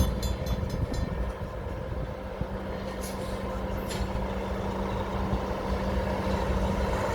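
Heavy diesel engine running steadily with a low hum. The clicking of rail wheels dies away in the first half second.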